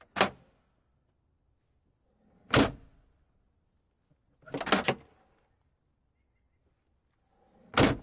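Car trunk lid being worked and shut, with its latch: a light clunk at the start, a heavy thunk about two and a half seconds in, a quick rattle of several clicks near five seconds, and another heavy thunk near the end.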